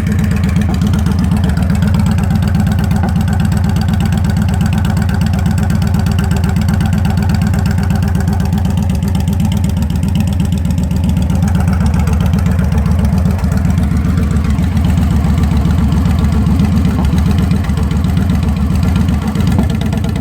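2014 Victory Judge motorcycle's V-twin engine idling steadily through RPW Boom Sticks exhaust pipes: a loud, deep, pulsing exhaust note with no revving.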